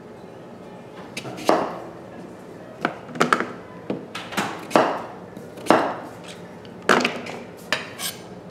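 A kitchen knife chopping butternut squash on a wooden cutting board: about ten sharp, irregular cuts starting about a second in.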